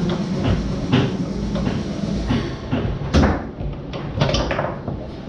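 Tornado foosball table in play: the ball struck and knocked about by the rod figures, with sharp clacks and rod rattling, the loudest hit a little after three seconds in.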